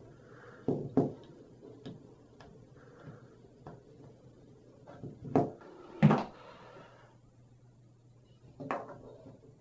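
Scattered clicks and light knocks of small plumbing fittings being handled and pushed onto a cut copper pipe stub for a tub spout. The loudest knocks come about five and six seconds in, with a short cluster of clicks near the end.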